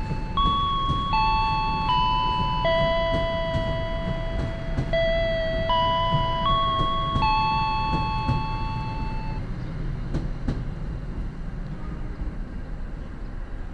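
A passenger train rolls past along the station track with a continuous low rumble. Over it a bell-like chime melody plays, its notes changing every half second to a second and a half, and it stops about nine seconds in, leaving only the train.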